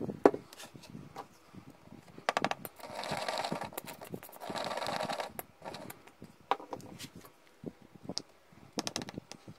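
Plastic glue bottle squeezed, sputtering and crackling in two bursts of about a second each as glue is forced out of its nozzle. Light clicks and taps come around it, and a small round magnet is pressed into a wooden recess near the end.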